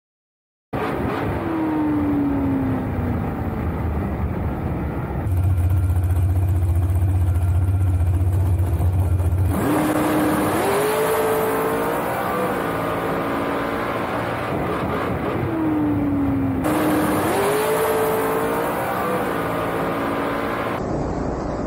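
Dragster engine heard from on board, in short edited clips that cut in and out suddenly. Its pitch dips and holds at a low drone, then climbs in rising steps as the car accelerates down the strip, with a rush of wind over it. This happens twice.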